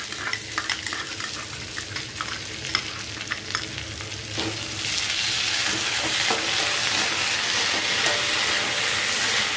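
Onion and capsicum stir-frying on high flame in an aluminium kadai, with a metal spatula scraping and clicking against the pan. About halfway through, once the red chilli sauce is in the hot pan, the sizzle turns louder and steady.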